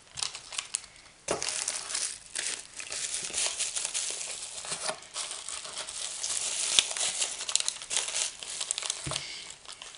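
Plastic packaging, including a bubble-wrap bag, crinkling and rustling as it is handled and shifted about in a cardboard box. The crinkling starts about a second in and dies away near the end.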